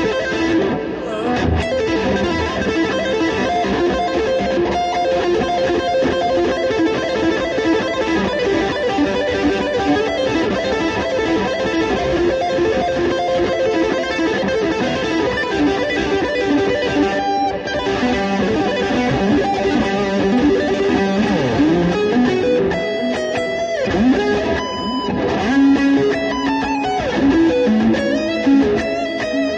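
Electric guitar playing continuously, with sustained notes and some bent notes gliding in pitch in the second half.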